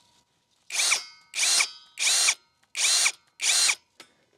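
WORX cordless drill with a socket, pulsed in five short bursts of about half a second each to drive a bolt through Unistrut channel. The motor's whine rises as each burst starts and drops as it stops.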